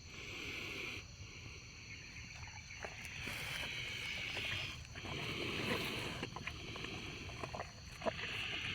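A cow snoring: rough, noisy breaths a second or so long, one after another. A steady high insect trill runs behind.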